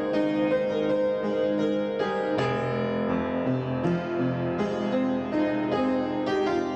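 Background piano music: a steady flow of struck notes and held chords.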